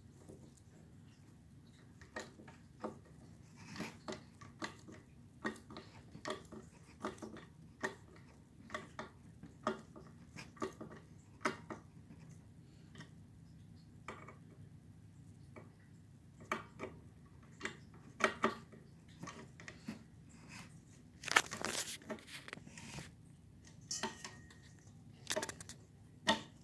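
Irregular clicks, clinks and knocks of small metal parts and tools being handled while fitting a ceiling fan, with a louder burst of rattling about three-quarters of the way through.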